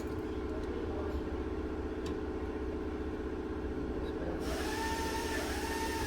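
A steady low mechanical hum, joined about four and a half seconds in by a hiss and a motor whine that rises and dips in pitch.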